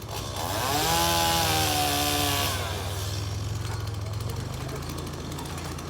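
An electric motor whines as it spins up, holds for about two seconds and winds down, with a hiss while it runs, over a steady low rumble.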